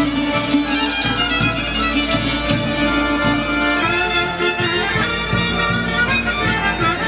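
Hutsul folk band playing a dance tune: violin leading over accordion, with tsymbaly (hammered dulcimer), sopilka (folk flute) and a small drum keeping a steady, even beat.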